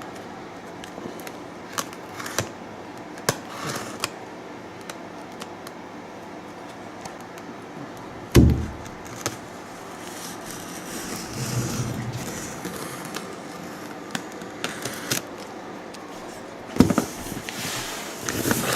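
Handling of a cardboard box and its packaging: scattered clicks and rustles, a heavy thump about eight seconds in, and a cluster of knocks near the end.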